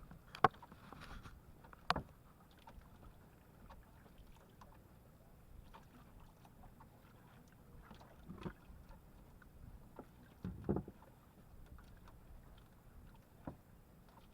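Occasional knocks and bumps in a small fishing boat over faint low background noise; a sharp knock about half a second in is the loudest, with another about two seconds in and a heavier bump near the end.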